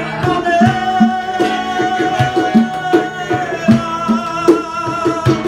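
Live Latin American folk band playing: acoustic guitars over a steady cajón beat, with long held melody notes on top.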